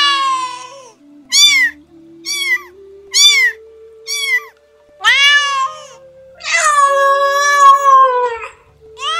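Domestic cat meowing over and over. One meow tails off in the first second, then come four short, quick meows about a second apart, then a longer meow and a long drawn-out one, with another beginning at the end.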